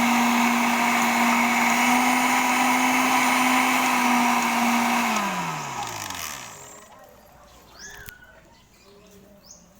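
Electric blender motor running at a steady speed, then switched off about five seconds in and winding down to a stop. Afterwards a bird cooing in a repeated rhythm, with a few chirps.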